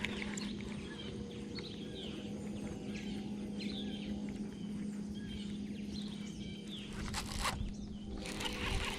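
Birds chirping in short scattered calls over a steady low hum and outdoor background noise, with a brief rushing burst about seven seconds in.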